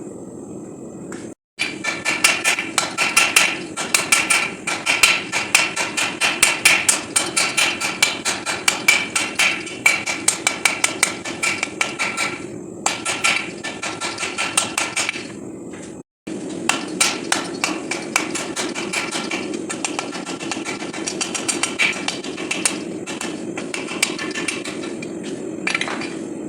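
Hand hammer blows striking hot 5160 steel on an anvil in a fast, steady rhythm, each blow followed by a bright metallic ring, over a steady low hum. The hammering breaks off briefly twice, and the blows are lighter in the second half.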